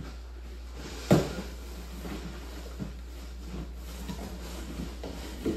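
Cardboard packing being handled and pulled out of a shipping box, with one sharp knock about a second in and a few lighter knocks after it, over a steady low hum.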